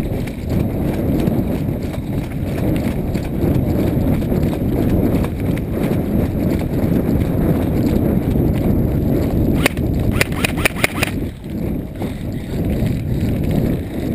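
Footsteps walking steadily along a dry dirt-and-grass track, picked up loud and close by a body-worn camera. About ten seconds in, a quick run of about six sharp clicks.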